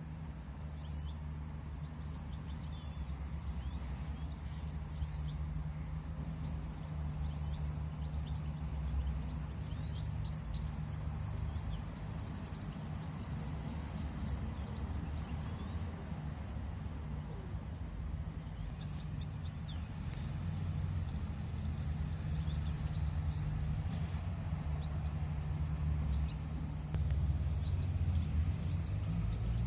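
Small birds chirping and calling on and off over a steady low rumble.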